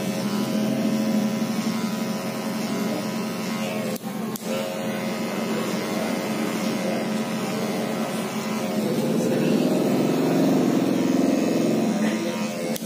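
Electric hair clipper buzzing as it cuts over a comb, a steady motor hum that dips briefly about four seconds in and grows louder and rougher near the end.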